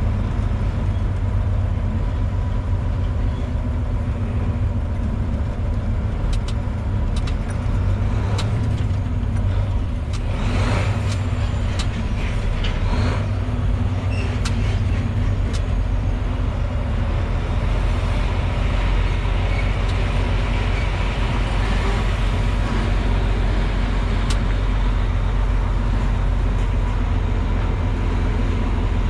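Loaded grain truck's engine running steadily as the truck pulls slowly under the elevator dump, with scattered light clicks and knocks during the first half.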